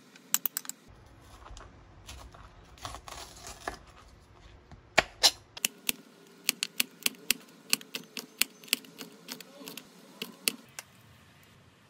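A kitchen knife chopping a green chili pepper on a plastic cutting board: sharp, even taps about three a second that start about halfway through and stop near the end. Before them come a few clinks of a metal spoon against a glass dish of rice, and some handling noise.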